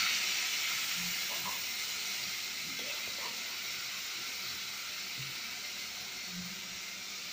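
Chopped potato, tomato, onion and carrot sizzling in hot oil in a wok just after being tipped in, the sizzle slowly dying down.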